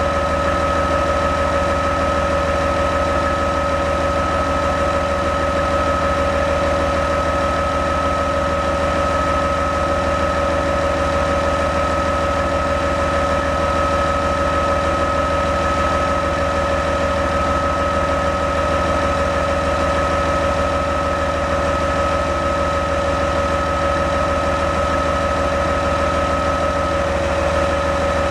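Morbark 1300 tub grinder's diesel engine running steadily at a constant speed, with a steady high whine over the engine hum.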